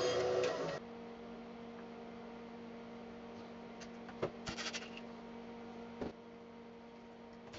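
A bandsaw cutting a small block of pine for under a second, then stopping abruptly. After that there is a steady low electrical hum, with a few light clicks and taps about four seconds in and again near six seconds as a cable clamp is screwed down.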